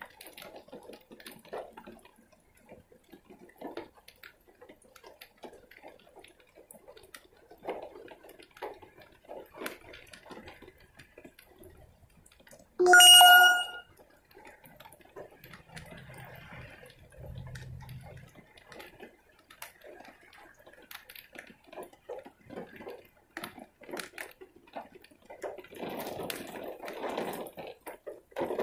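Rain dripping and pattering in irregular ticks, with a loud, short ringing tone about halfway through and a louder rush of noise near the end.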